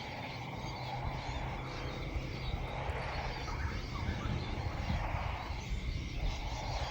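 Outdoor ambience with an uneven low rumble of wind on the microphone that picks up about half a second in, and faint bird chirps.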